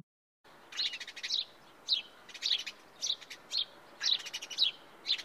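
Sparrow chirping: short, high chirps coming in quick little groups, over a faint hiss.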